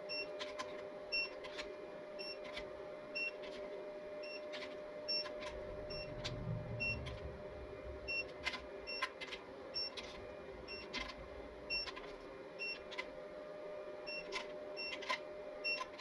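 Digital torque wrench beeping in short, repeated beeps, often in quick runs about half a second apart, as bolts on a Honda K24A2 cylinder head are torqued, with sharp ratchet clicks between the beeps. A steady hum runs underneath.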